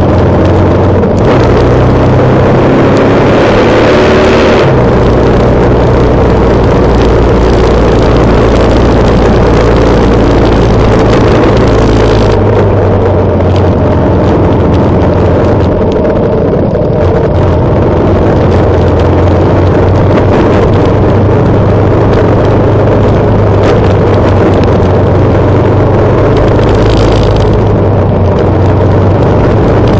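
Motorcycle engine running at riding speed, heard from the moving bike, with heavy wind noise over the microphone. The engine note steps up and down a few times with throttle and gear changes.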